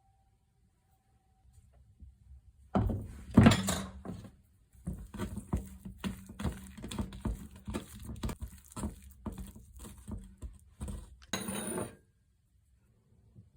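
Kitchen utensils and dishes clattering: a run of irregular knocks and scrapes lasting about nine seconds, loudest near the start, with a low steady hum underneath.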